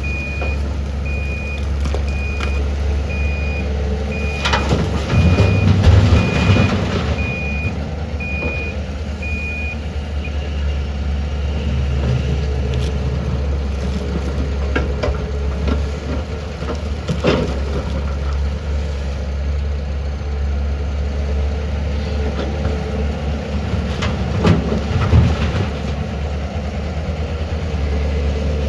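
Heavy diesel machinery, an excavator working with a tipper truck, running with a steady low drone. A reversing alarm beeps at an even pace and stops about ten seconds in. Several loud clattering knocks come around five to seven seconds in, at about seventeen seconds, and again near twenty-five seconds.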